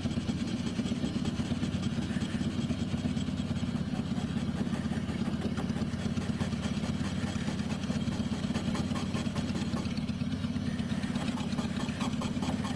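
Power polisher (random orbital sander) running with a steady hum while buffing chrome polish on a rusty motorcycle pipe cover. Short squeaks come in near the end: chrome squeaking as it comes clean, the sound the polisher is after.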